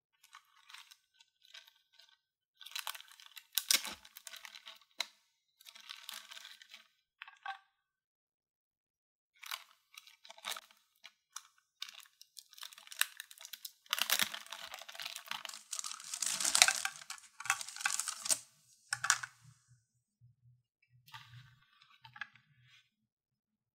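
Packaging being crinkled and torn open in irregular bursts during a toy unboxing, loudest in a long stretch about two-thirds of the way through.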